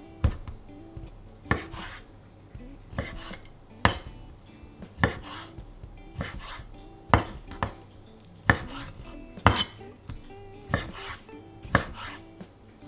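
Chef's knife cutting raw chicken breast on a wooden cutting board: a sharp knock of the blade striking the board about once a second, a dozen times.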